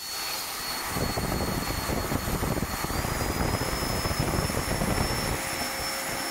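Electric ducted fan running on a test stand, blowing through a carbon-fibre thrust-vector nozzle: a steady rush of air with a high whine that steps up slightly in pitch about halfway through.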